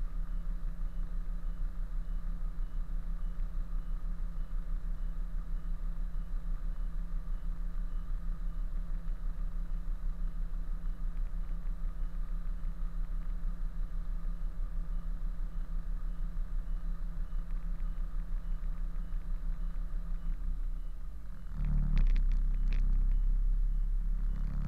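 Kenworth truck's diesel engine idling steadily with an even low pulse. About 21 seconds in the sound gets louder, with a short burst of clatter.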